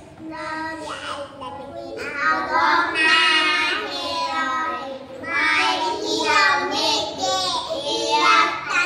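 A group of four-year-old children chanting memorised Quran verses in unison, in a sing-song melody, louder from about two seconds in.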